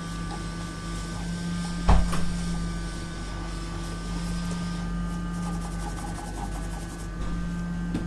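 Hot air blower running with a steady hum, drying the freshly cleaned solder joints of a replacement USB port on a laptop motherboard. A single sharp knock comes about two seconds in.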